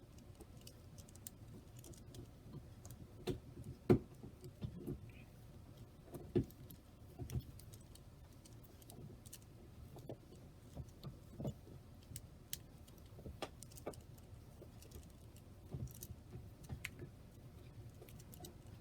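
Irregular faint clicks and clacks of a miniature Rubik's Cube's plastic layers being turned, with a few louder clicks about four and six seconds in.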